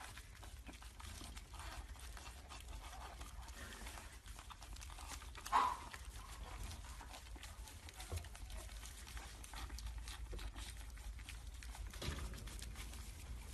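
Several pug puppies eating dry kibble from a shared bowl: faint, busy crunching and chewing with lots of small clicks. One short, louder sound comes about five and a half seconds in.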